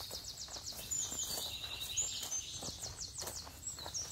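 Forest birds calling with high-pitched chirps and two fast trills, over soft footsteps on a dirt trail.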